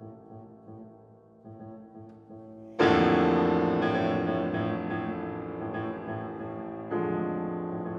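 Grand piano playing alone: soft held chords, then a loud full chord struck about three seconds in that rings and slowly fades, and another chord struck near the end.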